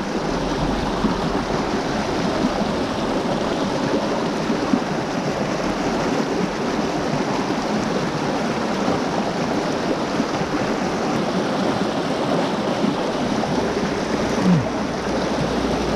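Steady rush of a mountain trout stream's running water.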